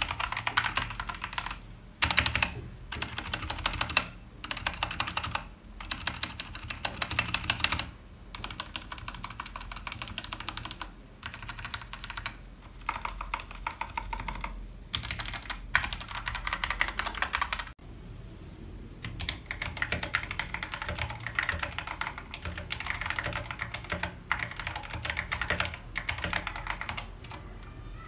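Typing on an RK100 mechanical keyboard fitted with XDA-profile PBT keycaps: rapid key clicks in runs of a second or two, with short pauses between them.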